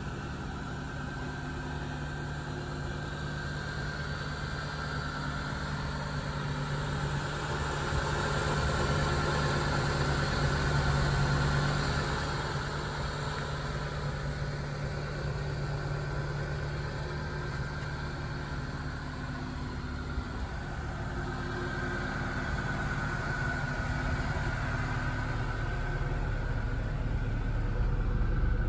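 Mitsubishi Delica box truck's engine idling steadily, a little louder about a third of the way through.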